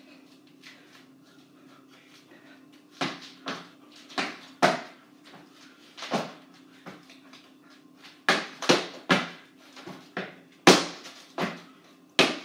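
Sneakered feet stomping and landing on a hard wooden floor during dancing: irregular thuds, few in the first three seconds and then coming thick and fast, over a low steady hum.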